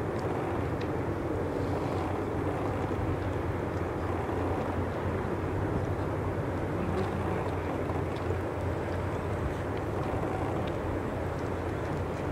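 Steady low drone of a passing Rhine inland cargo vessel's diesel engine, with a constant hum and a rushing haze of noise.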